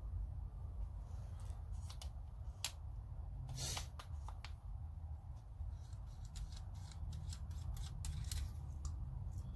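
Small clicks and rustles of a hand tool and its packaging being handled, with a longer rustle about three and a half seconds in, over a low steady rumble.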